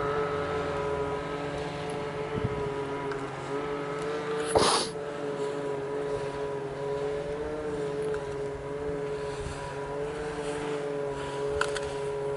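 A steady machine drone with several fixed tones, engine-like, running evenly throughout, with one short rushing noise burst about four and a half seconds in.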